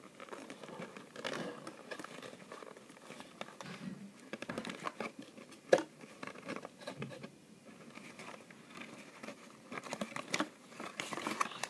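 Rustling, scraping and light clicks of a headphone cable and a pair of headphones being pulled out of a cardboard box, in an irregular patter, with one sharper click about six seconds in and busier handling near the end.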